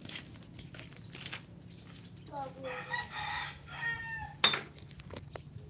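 A rooster crowing in the background: one long call about two and a half seconds in, lasting nearly two seconds. Scattered light clicks, and one sharp knock about four and a half seconds in, which is the loudest moment.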